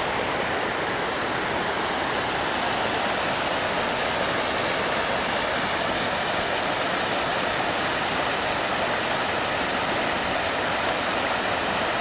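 Fast-moving floodwater of a swollen creek rushing steadily.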